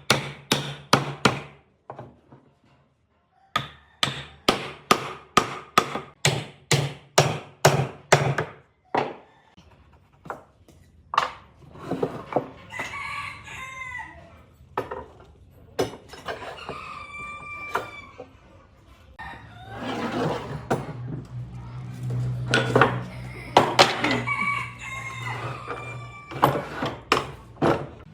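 Hammer blows, about two a second, in two runs through the first eight seconds. After that a rooster crows several times.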